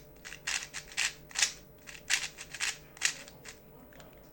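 A 3x3 speed cube being turned through an A-perm algorithm: a run of about ten quick plastic clacks, one per layer turn, which stop about three and a half seconds in.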